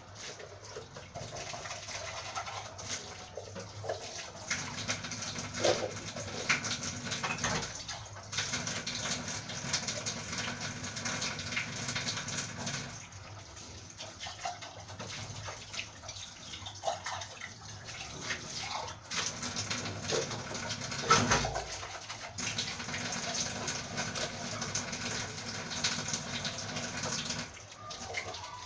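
Tap water running steadily into a kitchen sink, with a few short breaks and occasional knocks and clatters.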